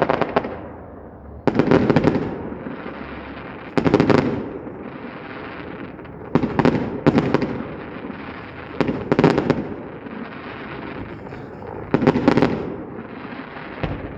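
Fireworks going off overhead in a string of about seven bursts a second or two apart. Each burst is a cluster of sharp crackling bangs that trails off in a rumbling echo.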